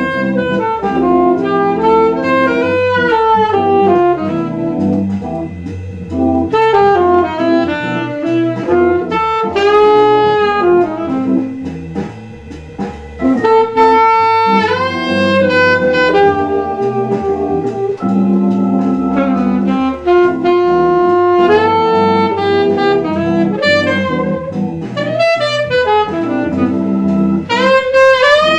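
Selmer alto saxophone playing a jazz melody with bends and slides over a backing track of bass, chords and drums, with a brief phrase break about twelve seconds in.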